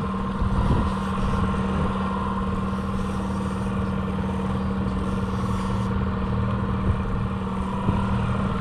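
Outboard motor running steadily at trolling speed, a constant hum over the rush of water churned up in the wake, with a few light knocks near the start and near the end.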